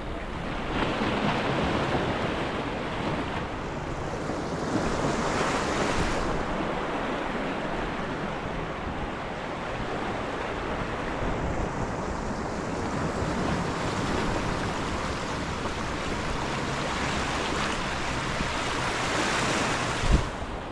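Ocean surf washing against the shore, swelling and ebbing every few seconds, with wind buffeting the microphone. There is a short thump near the end.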